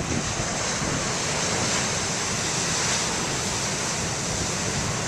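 Heavy ocean surf: large waves breaking and washing in as a steady, even rush of noise.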